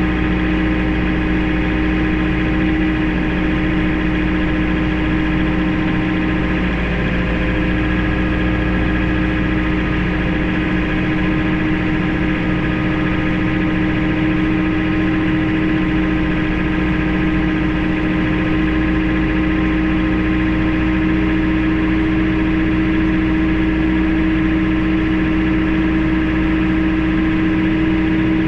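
Farm tractor's engine running at a steady, unchanging speed while it pushes a disabled pickup truck along a gravel road.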